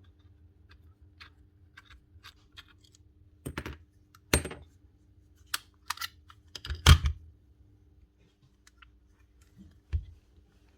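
Small scattered clicks and knocks of tools and metal parts being handled while a pin nailer is taken apart, with two louder knocks about four and seven seconds in.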